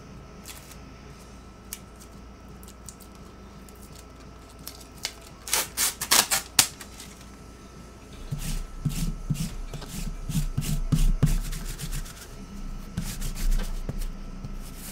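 A trading-card pack is torn open: a short, loud crackling rip of the wrapper about six seconds in, then the cards are handled and slid against each other with soft rubbing and quick clicks.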